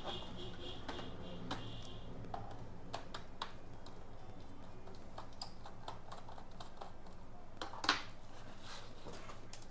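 Light plastic clicks and taps of a laptop being handled as its DVD writer drive is worked loose and pulled out, with one louder knock near the end.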